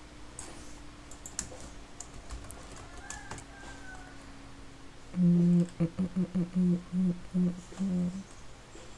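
Faint computer keyboard typing and clicks, then a man humming a few short, even notes for about three seconds.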